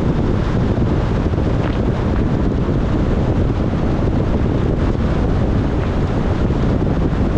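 Steady rumble and hiss of a car driving on a wet road in heavy rain, with wind buffeting the microphone.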